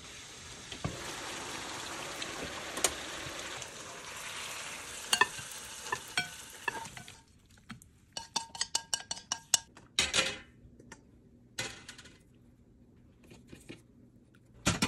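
Dungeness crab pieces sizzling in a frying pan, with occasional clicks of a utensil against the pan. The sizzle cuts off about seven seconds in, followed by a run of quick scrapes and clinks of a utensil against the metal pan as the crab is tipped out onto a plate.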